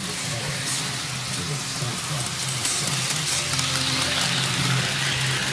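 HO scale model train running on sectional track, led by an Athearn EMD GP40-2 locomotive: a steady whirring hiss of the motor and wheels rolling on the rails.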